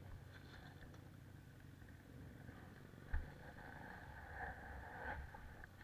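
Handling and rustling noise on a body-worn action camera, with a single sharp knock about three seconds in, over a faint engine sound in the background.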